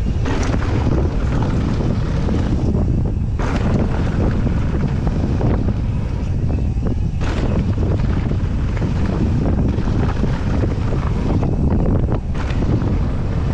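Wind buffeting the microphone of a camera on a mountain bike speeding downhill, a steady low rumble. Under it, the tyres crunch over loose dirt and small rocks and the bike chatters over bumps.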